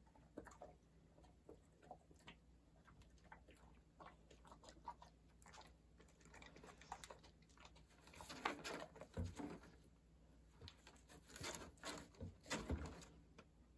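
Faint, scattered rustling and crinkling of a plastic bag and cardboard as a dog noses through a box hunting for kibble, with short clicks and knocks. Louder clusters of rustling come about eight seconds in and again near the end.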